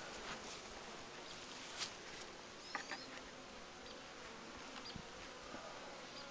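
Faint, steady buzzing of a honey bee colony at an open hive box, with a few faint clicks as a hive tool works at the frames.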